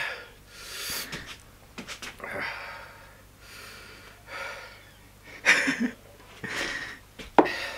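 A man breathing heavily in and out through his mouth, a series of noisy, wheezy breaths about a second apart, from the burn of a ghost chili pepper he has just eaten.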